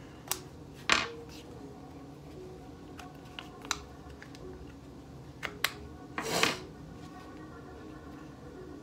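Hands pushing the push pins out of a Tippmann A5 paintball marker's frame and handling the marker: scattered sharp clicks and ticks, the loudest about a second in, and a half-second scrape about six seconds in.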